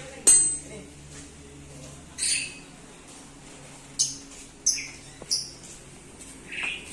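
A bird's short, high squawking calls, about six of them spread a second or so apart, over a faint steady low hum. A sharp knock comes just after the start.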